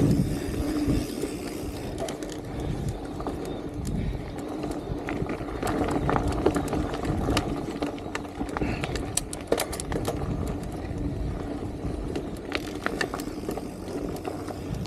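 Mountain bike descending a dirt singletrack: tyres rolling over the dirt with rattles and sharp knocks from the bike over bumps, under a steady rush of wind on the microphone.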